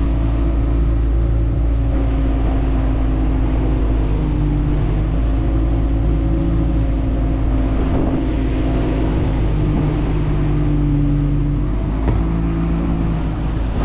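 Boat engine running steadily under way, a constant low drone whose pitch shifts slightly now and then.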